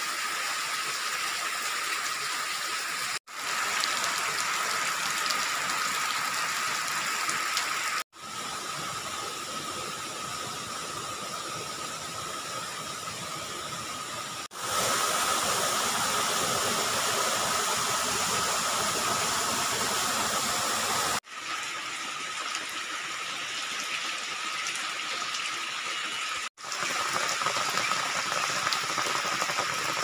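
Steady rain falling on leaves and ground, in spliced takes that each break off abruptly every five or six seconds. In the middle stretch a small stream splashing over rocks makes the water noise louder and fuller.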